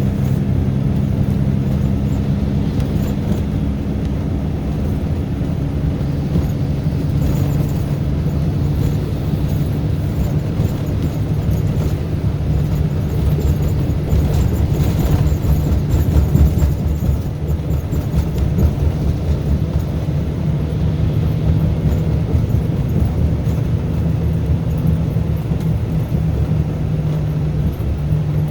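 Scania K410B coach's rear-mounted 13-litre inline-six diesel running steadily, its low drone shifting a little in pitch as the revs change.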